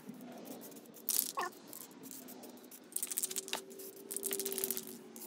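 Aerosol spray-paint can spraying in three short hissing spurts that break up and sputter. The brand-new can is acting like it's empty and only sprays when held at a certain angle.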